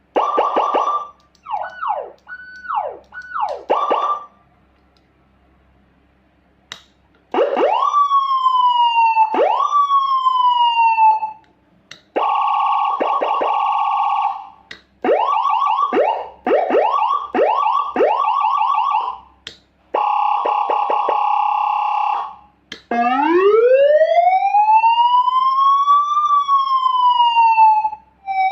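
Homemade nine-tone, double-tone siren module sounding through a white horn loudspeaker, stepped through several of its tones: short whoops, a pause of a few seconds, two sharp rise-and-fall sweeps, a fast two-note warble, rapid yelps, and near the end one slow rising and falling wail. It is at its standard volume setting, not yet turned up full.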